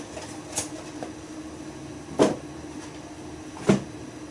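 Kitchen cupboard doors knocking as things are put away: a light click, then two sharp knocks about a second and a half apart. Under them runs the steady hum of the cooker-hood extractor fan.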